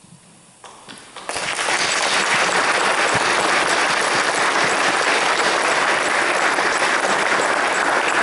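Audience applauding, starting about a second in and continuing steadily.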